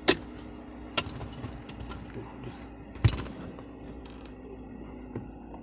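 A few sharp clicks and knocks from hands working at a car's gear shifter and its knob, the loudest about three seconds in with a dull thump, over a steady low hum.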